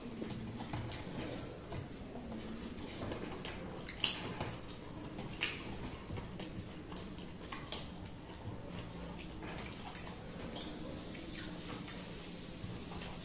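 People eating rice and curry with their hands from metal plates: soft wet sounds of chewing and of rice being mixed, with scattered light clicks of fingers on the plates and a sharper click about four seconds in.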